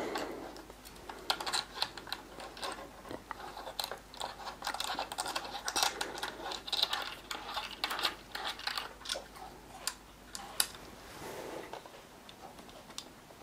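Irregular small clicks and taps of a Sky-Watcher Star Adventurer mount and its equatorial wedge being twisted by hand onto a tripod's 3/8-inch screw thread, with a brief rustle near the end.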